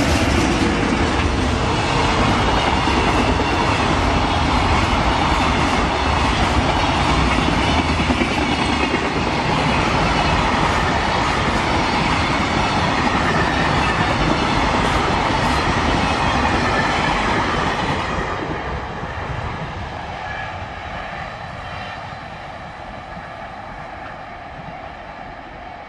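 Container freight train hauled by a JR Freight EH500 electric locomotive passing close by, its wagons running loud and steady on the rails, then fading away from about eighteen seconds in as the end of the train goes past.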